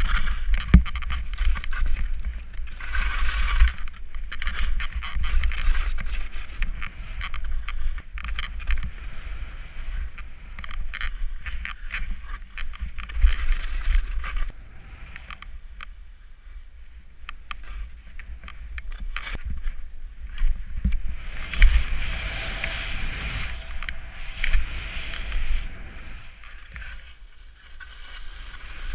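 Skis hissing and scraping over snow, swelling and fading with the turns, over a low buffeting of wind on the camera's microphone. The snow noise quietens for a while in the middle, then grows loud again.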